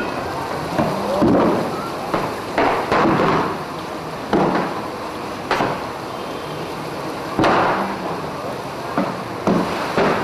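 Steady rushing noise at a burning shop front, broken by short, sharp bangs and knocks every second or so at irregular intervals.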